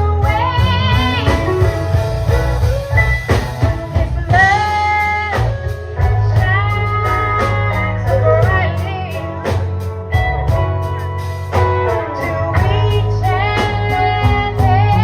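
Live gospel band performing: sung vocals with vibrato over electric guitar, a heavy bass line and a steady drum beat.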